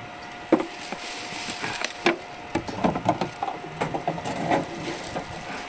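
Plastic PET bottle rattling and clacking against the round intake of a bottle-recycling machine as it is pushed in by hand, a string of irregular hollow knocks.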